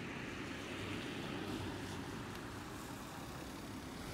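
Steady low rumble with a hiss above it and no distinct events: the background noise of a rural railway station.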